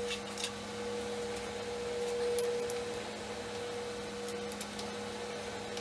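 A steady electrical hum, a higher tone over a lower one, under a light hiss, with a few faint clicks of parts being handled about half a second in.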